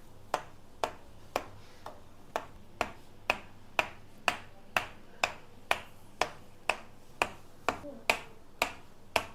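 Sharp ticks repeating evenly about twice a second, each with a brief ringing tail, like a metronome.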